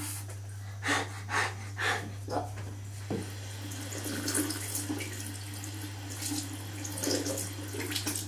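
Tap water running into a sink. Three short, sharp bursts about half a second apart come about a second in, and a few more follow later.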